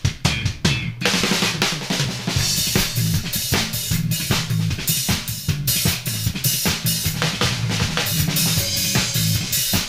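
Drum kit and bass guitar jamming in an improvised funk groove: kick, snare and rimshot hits over held bass notes, with a cymbal wash coming in about a second in.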